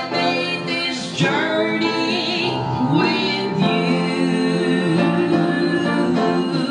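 A woman and a man singing a song together into microphones, with long held notes.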